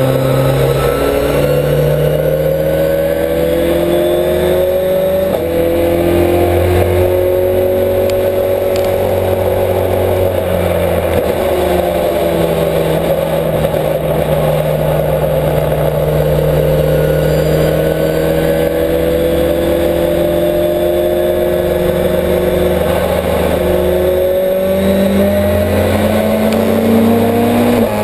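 Race-prepared Ford Escort's engine heard from inside the stripped cabin, driven around a track with its pitch rising and falling as the driver accelerates and eases off. Near the end the pitch dips briefly and then climbs again.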